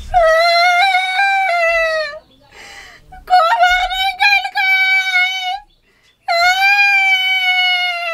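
A high-pitched voice holding three long, slightly wavering notes of about two seconds each, with short gaps between them.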